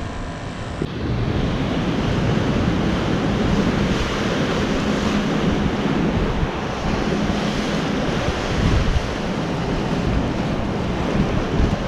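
Wind buffeting the microphone over ocean surf washing against the pier's pilings below: a steady rush that gets louder about a second in.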